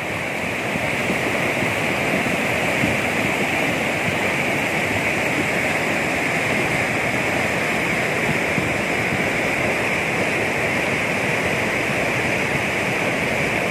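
Steady rush of the Neugal river in flood, its silt-laden white water churning over boulders.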